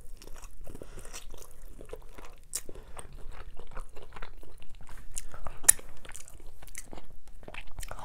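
A person biting and chewing meat off a barbecue pork rib, with many small clicks and crackles and one sharper click a little before six seconds in.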